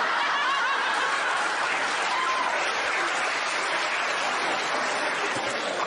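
Large studio audience laughing and applauding together in a steady wash of crowd noise that eases slightly near the end.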